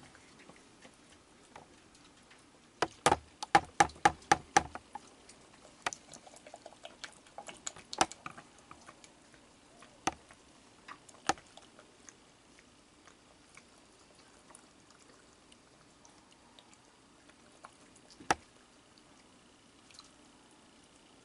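A young raccoon dabbling its paws in a plastic bowl of water, with small splashes and drips. A quick run of sharp clicks comes about three seconds in, with scattered single clicks after it.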